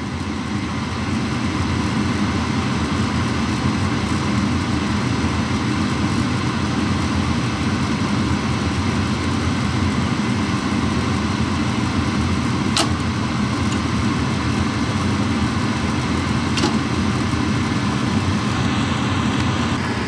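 Gas furnace's draft inducer motor running steadily during the ignition sequence while the hot surface igniter heats, with two sharp clicks a few seconds apart past the middle.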